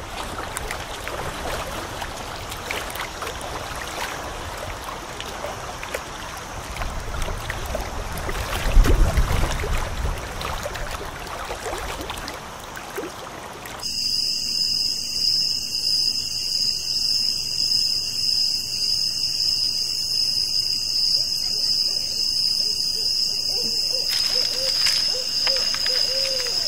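Small waves lapping at a lake shore, with a brief low rumble about nine seconds in. About halfway through, the sound cuts abruptly to a steady high-pitched drone.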